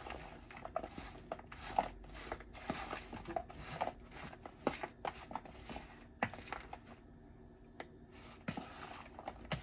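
Metal spoon stirring a kidney bean, cheese and onion mixture in a plastic bowl: soft, irregular scrapes and clicks of the spoon against the bowl, pausing briefly near the end before starting again.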